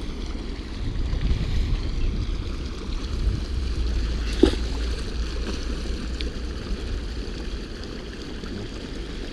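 Wind rumbling on the microphone over a steady rush of running water from a spillway, with one sharp knock about four and a half seconds in.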